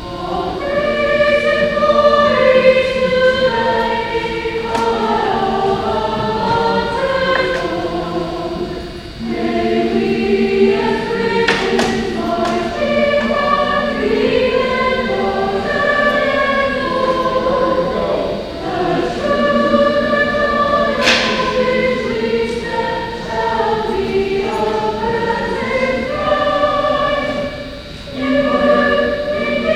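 School choir singing, many voices holding long notes together, with short breaks about nine seconds in and near the end.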